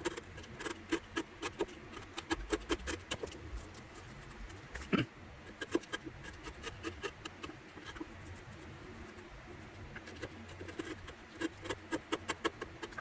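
Wood chisel paring a sliding dovetail joint by hand: an irregular run of small slicing clicks and scrapes, with one sharper knock about five seconds in.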